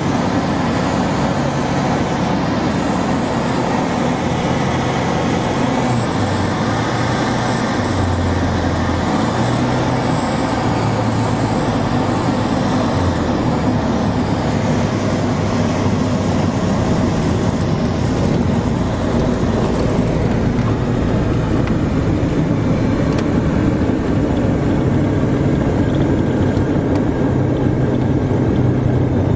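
Single-engine light aircraft's piston engine and propeller running at reduced power, heard from inside the cockpit together with steady airflow noise during approach and landing. The low engine note steps up and down a few times, and the airflow hiss fades somewhat in the last third as the plane slows on the runway.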